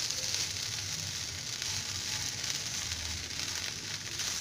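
Okra fry sizzling steadily in hot oil in a nonstick kadai, with a fine crackle running through it.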